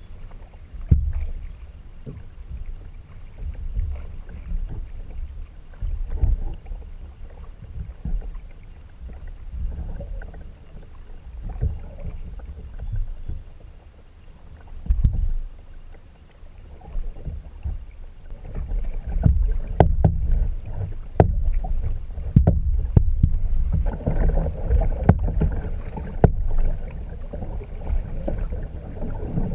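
Kayak paddling: a paddle stroke with a splash of water about every two seconds, over a low rumble. In the second half come several sharp knocks and clatters.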